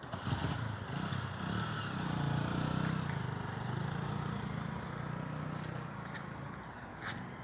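A motor vehicle's engine running close by, starting suddenly, loudest two to three seconds in, then slowly fading.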